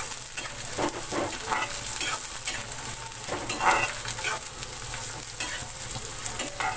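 Sliced onions sizzling in hot mustard oil in a metal kadhai, stirred with a steel spatula that scrapes against the pan several times.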